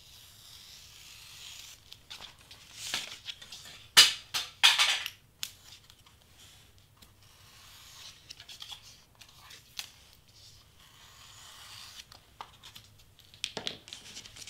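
Cardstock being cut with a craft knife and handled on a cutting mat: short scratching and paper rustles, the loudest a sharp cluster about four to five seconds in and another near the end.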